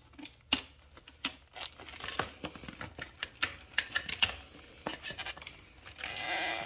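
Irregular clicks, taps and knocks of a hard plastic EVAP charcoal canister and its rubber hoses being handled and tugged as it is worked loose from a motorcycle frame where it catches under the fuel tank, with a brief stretch of rustling near the end.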